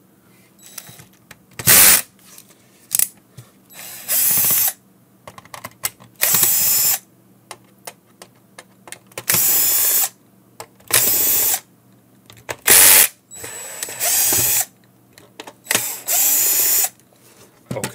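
Cordless drill-driver with a long screwdriver bit backing screws out of a plastic multimeter case. It runs in about eight short bursts, each under a second, with pauses between.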